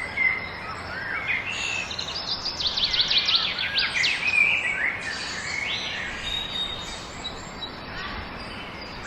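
Several songbirds singing and calling over a steady background hiss, with a fast run of quick repeated down-slurred notes about two to four seconds in.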